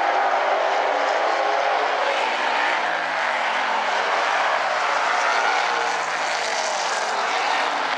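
Several street stock race cars running at speed on an oval track, their engines blending into a steady drone with shifting pitch as the cars go by.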